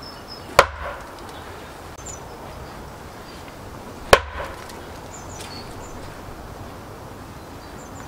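An axe chopping into a log standing on a chopping block: two sharp blows about three and a half seconds apart. The log does not split, and the chopper suspects the wood is too wet.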